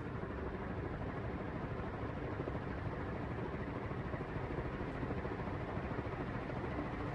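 Early-1970s Wing TAT-made Martec 48-inch ceiling fan running at full speed: a steady rush of air from its straight industrial blades over a low motor hum.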